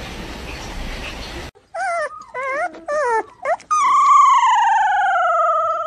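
A husky-type dog vocalizing as a wire head massager is run over its head: a few short yowls that bend up and down, then one long moaning howl that slowly falls in pitch.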